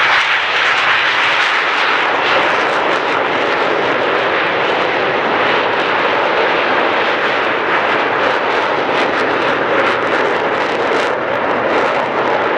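A formation of Aermacchi MB-339 jet trainers flying past, each powered by a single Rolls-Royce Viper turbojet, making a loud, steady rush of jet noise.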